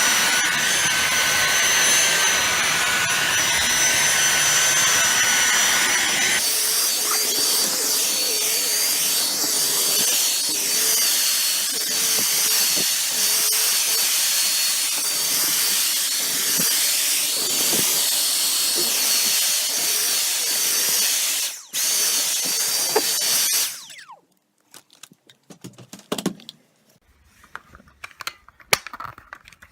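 Dyson V6 Fluffy cordless vacuum cleaner running with a steady high whine; the whine shifts to a different pitch about six seconds in. It cuts out for a moment, runs again briefly and stops about three quarters of the way through, followed by a few light clicks and knocks.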